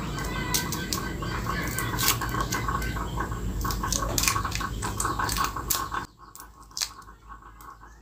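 Knife scraping the papery skin off a garlic clove: a run of small scrapes and clicks, dropping much quieter about six seconds in.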